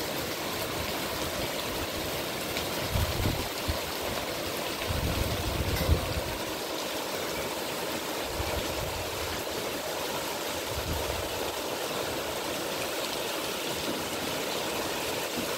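Heavy rain pouring steadily onto banana leaves and trees, a dense even hiss, with a few brief low rumbles swelling up and fading.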